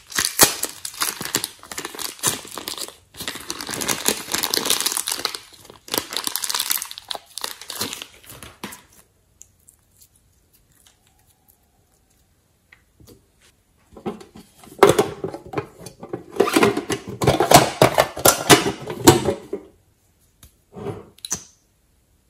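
Crinkling and crackling handling noise in two long spells, a few seconds' pause between them, then a short burst near the end.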